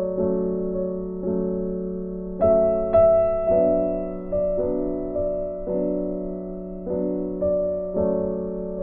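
Soft background piano music: chords struck about once a second, each left to fade before the next.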